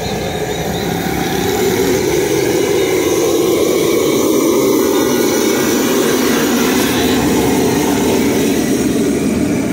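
Steady, loud roar of the burner flame under a wide karahi of frying oil.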